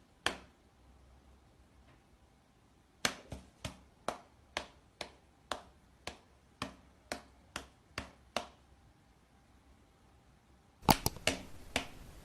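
A series of sharp taps or knocks, roughly two a second for about five seconds, followed near the end by a louder, quicker cluster of knocks.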